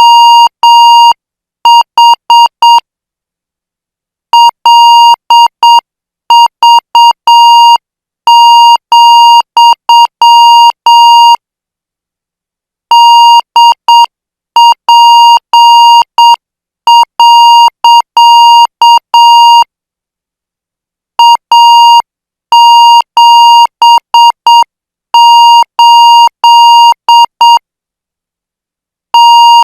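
Morse code practice tone: a single steady-pitched beep keyed in short and long marks, sent as five-character code groups at 8 words per minute. A pause of about a second and a half separates each group.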